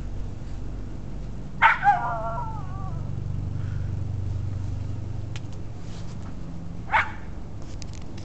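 Jack Russell terrier barking: two quick high barks about a second and a half in, trailing into a wavering whine, then one more sharp bark near the end. A steady low hum runs underneath.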